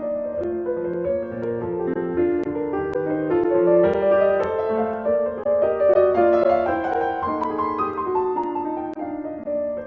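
Background piano music, a flowing melody of held notes over lower chords.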